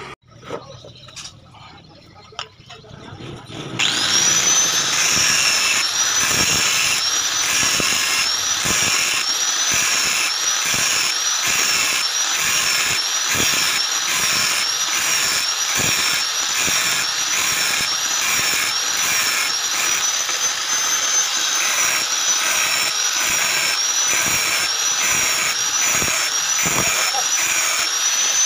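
Hand-held angle grinder starting up about four seconds in and running at speed with a high, slightly wavering whine, its disc pressed against an empty spray paint can. A regular pulsing runs through the sound as the can is worked against the disc.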